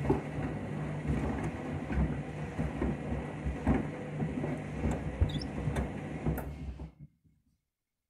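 Front-loading washing machine tumbling shoes on a delicate wash: soapy water sloshing in the turning drum over a low motor hum, with irregular knocks as the shoes drop against the drum. The sound cuts off suddenly about seven seconds in.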